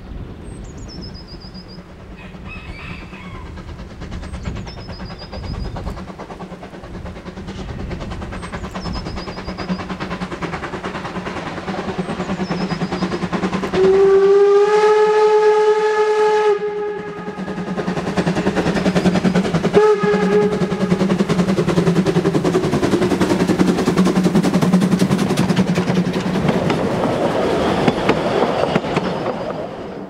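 Narrow-gauge steam locomotive 99 1777-4 approaching, its exhaust beats growing louder, with birds chirping early on. About halfway through it blows one long steam whistle of nearly three seconds, then a short toot a few seconds later, before its passenger coaches clatter past.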